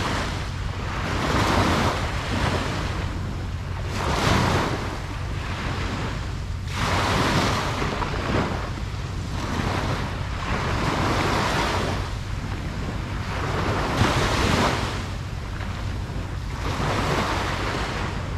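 Ocean surf breaking and washing up a beach, the noise swelling and falling again every two to three seconds. A steady low rumble of wind on the microphone runs underneath.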